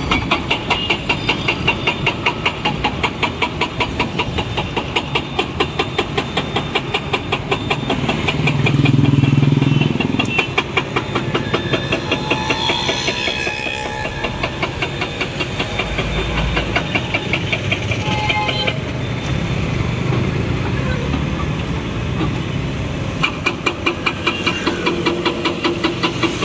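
City road traffic: motorcycles, scooters and cars going past, with a steady pulsing of about two to three beats a second through most of it, and a heavier vehicle passing close about nine seconds in.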